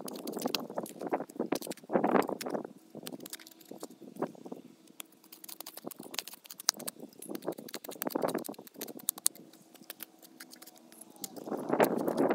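Hand trowel digging and scraping into soil and small roots at the base of a juniper stump: irregular strokes of crunching, scratching and clicking, quieter through the middle and loudest in a run of strokes near the end.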